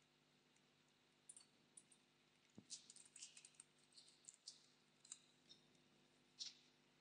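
Faint computer keyboard typing: a run of quick, irregular key clicks that starts about a second in and is busiest in the middle, with a few more clicks near the end.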